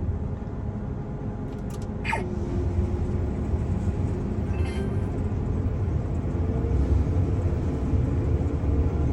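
Combine harvester running, heard from inside the cab: a steady low engine rumble, joined about two seconds in by a whine that slowly climbs in pitch.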